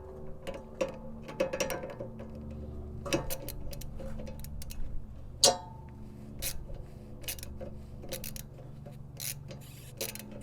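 A ratchet clicking in short, irregular runs as a brake caliper piston tool is turned to wind the rear caliper piston back into its bore. A sharper metallic clink comes about five and a half seconds in.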